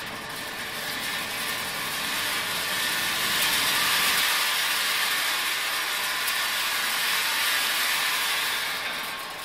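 Sunflower seed roasting and air-cooling machine running, with roasted seeds pouring off the roaster belt onto its stainless steel chute and cooling conveyor: a steady, dense rattling hiss.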